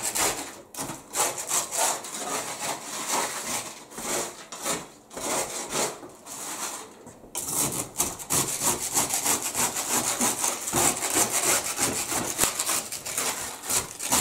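Hands stirring and spreading dried minnows on metal baking trays: a dry, scratchy rustling and scraping of the fish against each other and the metal. It comes in short spells at first and runs on without a break from about halfway through.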